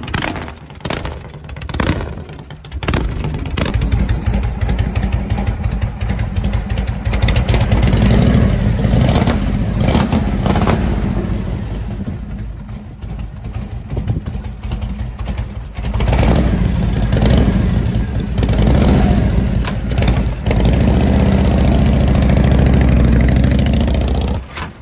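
Custom Harley-Davidson chopper V-twin engines with open pipes: short sharp stabs during starting, then an engine catching about three seconds in and running with repeated blips of the throttle. A second bike then revs hard.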